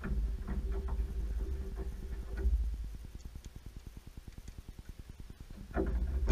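Small plastic clicks and scraping from hands working behind a car headlamp while fitting a new headlight bulb, over a low rumble. The clicks come in the first half and again near the end.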